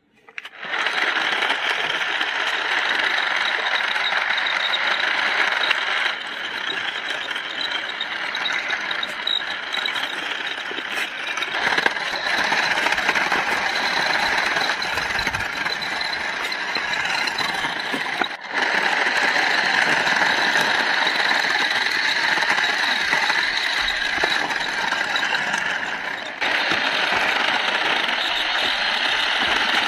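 Toy remote-control car's small electric motor and see-through plastic gear mechanism running, a steady rattling whir with a thin high whine as the car drives over rough dirt. The level jumps up or down abruptly a few times.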